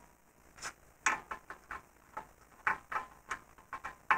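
Irregular light metallic clicks and ticks, about a dozen in four seconds, as the new locking nut is started by hand onto the ball-joint stud of a BMW lower control arm during installation.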